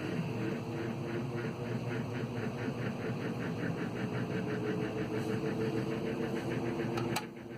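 GE 3-speed reversible box fan running on low: a steady motor hum with an even pulsing of about five or six beats a second from the turning blades. Its low speed is one the owner says needs work, and the motor needs oiling. Near the end a sharp click and the sound drops.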